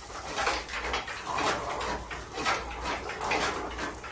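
Chaff-cutter with its flywheel turned by hand, its blades chopping green fodder with short crunching strokes about twice a second.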